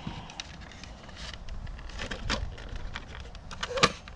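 Scattered light clicks and taps of small screws and a screwdriver being handled against the machine's housing while a screw is worked into place, with a sharper knock near the end.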